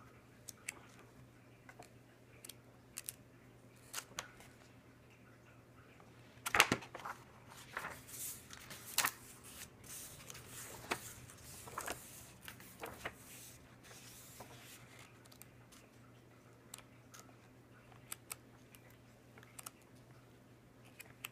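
Glossy pages of an oversized hardcover comic book being turned by hand: paper rustling and swishing with soft clicks and taps. The sharpest turn comes about six and a half seconds in, followed by a flurry of page turns for several seconds.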